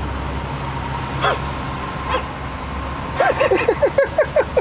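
An animal calling once, then from about three seconds in giving a rapid, regular series of short calls, several a second, over a steady low hum.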